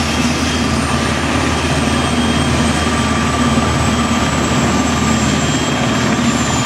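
Marine One, a VH-60N helicopter, descending to land: a loud, steady blade beat from the main rotor over the whine of its twin turbine engines.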